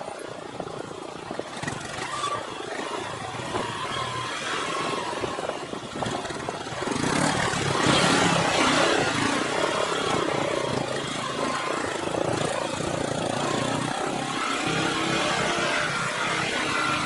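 Motorcycle engine running under way with wind and road noise. It gets louder about seven seconds in.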